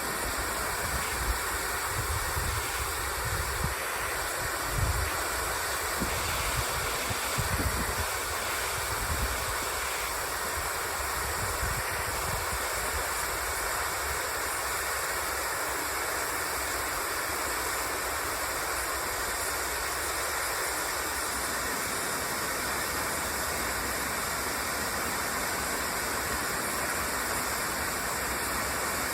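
Steady rushing of a partly frozen waterfall, water falling behind and over ice. Low wind buffets the microphone in roughly the first eight seconds.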